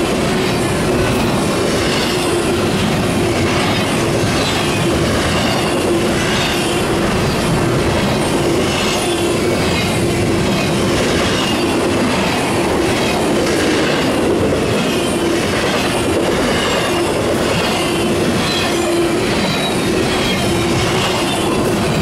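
Double-stack intermodal container cars rolling past at steady speed: steel wheels running on the rails in a dense, even rumble, with a steady hum and short high whines from the wheels recurring every second or so.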